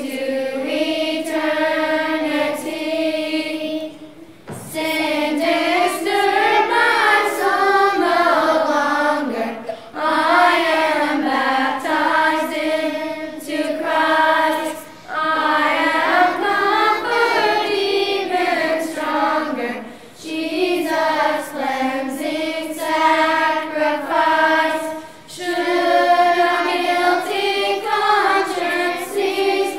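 Children's choir singing a hymn together, in phrases of about five seconds with short breaths between.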